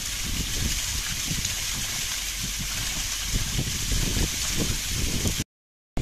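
Water from a pump-fed artificial rock waterfall splashing steadily down stone ledges, a constant hissing rush. It cuts off abruptly near the end.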